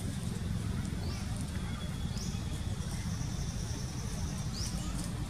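Steady low rumble of wind on the microphone outdoors, with a few short, rising, high-pitched chirps and a thin high whine in the middle.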